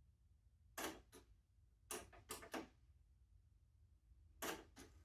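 Sharp mechanical clicks from a Pioneer cassette deck running its automatic tape calibration: a pair, then three in quick succession, then another pair, over a faint low hum.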